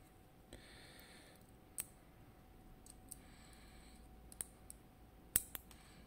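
Small metal clicks and ticks of steel tweezers against the parts of a FAB 2000 cylinder lock being taken apart: a few sharp ticks scattered through, the loudest about five seconds in.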